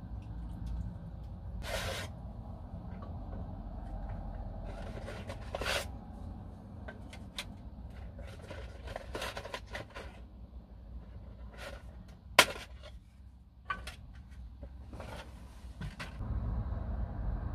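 Kitchen handling sounds of assembling a lasagne: a spoon scraping meat sauce into a ceramic baking dish, then dry lasagne sheets rustling out of a cardboard box and being laid in the dish, with scattered clicks and scrapes. A sharp click about twelve seconds in is the loudest sound, over a low steady hum.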